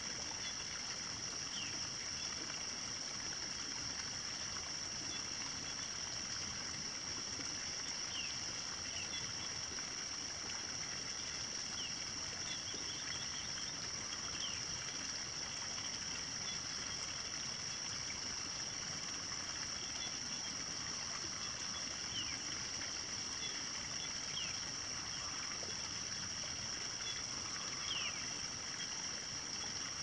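Morning countryside ambience: a steady high-pitched insect drone, with short bird chirps that slide downward coming every few seconds.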